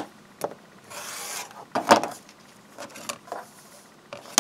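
Handling sounds: a clear acrylic quilting ruler and a paper-foundation block knocked and slid about on a cutting mat. There are several sharp clicks and a short rustling scrape about a second in.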